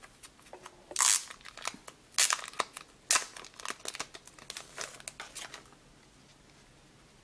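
Plastic wrapping on a clear rigid card toploader crinkling and crackling as it is handled, in a run of sharp crackles from about a second in to near six seconds, then stopping.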